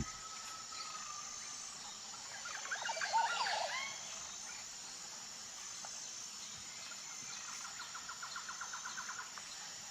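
Rainforest ambience: a short flurry of bird chirps about three seconds in, then a rapid, even trill of about eight notes a second near the end, over a faint steady hiss.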